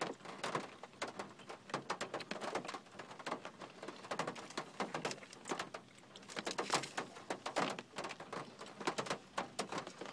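Close-up chewing of a hard everything bagel with cream cheese: a quick, irregular run of small mouth clicks and crunches.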